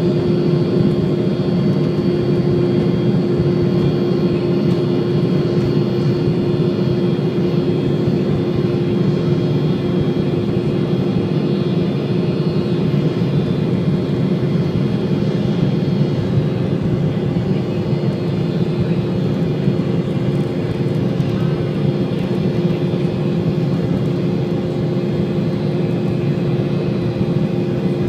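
Embraer E190 airliner heard from inside the cabin: its two GE CF34 turbofan engines run steadily under power over a loud, even roar, with a steady low hum and a fainter high whine.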